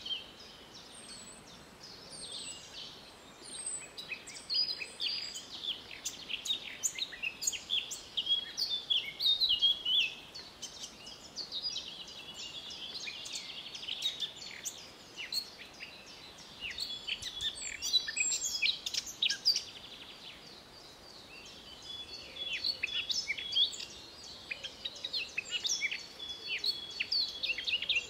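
Several songbirds singing at once in spring: overlapping quick chirps, trills and short whistles, coming in busy stretches with a short lull about two-thirds of the way through.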